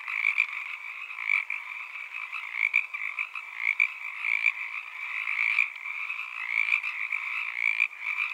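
A chorus of many frogs calling at once, their short calls overlapping into a steady, dense din.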